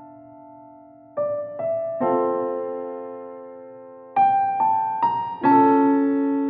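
Background piano music: a gentle, slow phrase of single notes and chords, each ringing on and fading away.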